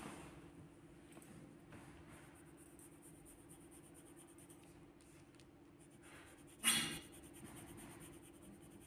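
Coloured pencil scratching faintly on paper as a drawing is coloured in. About seven seconds in there is a short, louder brushing slide as the sheet is turned on the table. A faint steady hum runs underneath.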